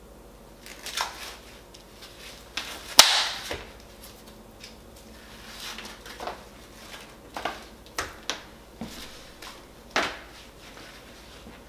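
Plastic meat packaging rustled and peeled open at a kitchen counter, with scattered knocks and clicks of things set down on a wooden butcher-block surface, the loudest a sharp knock about three seconds in.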